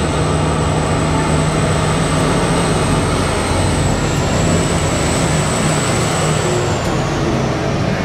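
Giant BelAZ mining dump truck driving past, its engine running steadily under a loud wash of noise with a low hum, and a thin high whine over it that sags slightly near the end.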